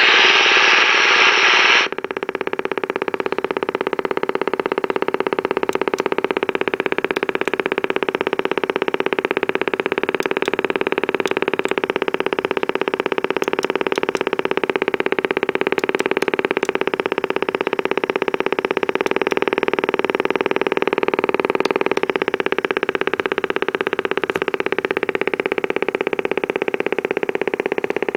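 Radio Shack TRC-495 CB base station's speaker giving a loud hiss for about two seconds, then a steady, fast, rapidly pulsing buzz: the motorboating noise of an unwanted low-frequency oscillation. The noise blanker and limiter do not stop it, and the fault was traced to a bad capacitor.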